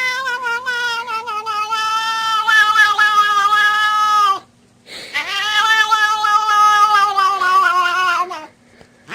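A cat yowling: two long, drawn-out calls of about four seconds each, separated by a short pause.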